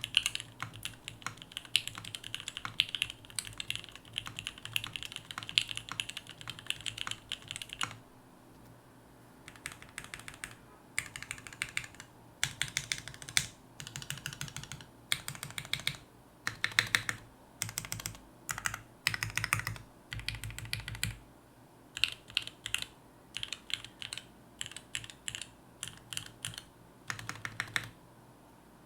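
Custom mechanical keyboard (Haus by Hand Engineering: gummy O-ring mount, aluminum full plate, 8008 Ink housings with UHMWPE stems, lubed) being typed on. Fast, continuous typing runs for about eight seconds, then a short pause, then bursts of keystrokes and single presses that stop near the end.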